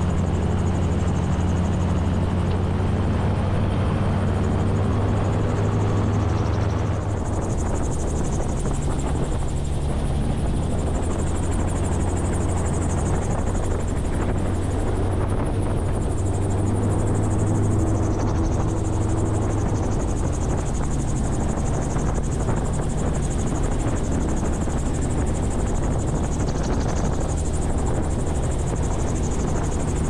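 Gyroplane engine and pusher propeller running steadily, with wind rushing past the open cockpit. About twenty seconds in the engine's low tone weakens as power comes back for a slow landing approach at around 35 knots.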